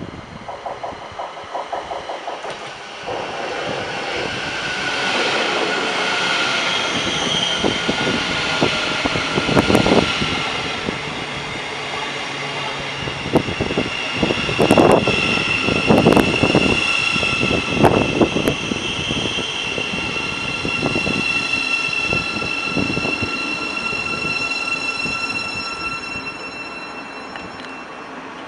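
Electric train running on the line: wheels knocking over rail joints with a steady high whine. Several louder knocks come about halfway through.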